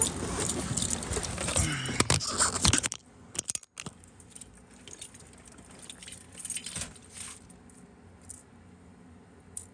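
Loud outdoor noise and rustling of the phone being handled while getting into a car, cut off suddenly about three seconds in as the car door shuts. Then the quiet car cabin, with car keys jingling and small clicks.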